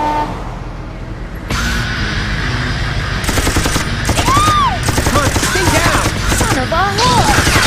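Rapid automatic gunfire, a dense volley of shots starting about three seconds in over a loud rushing noise, with short whistles that rise and fall through it.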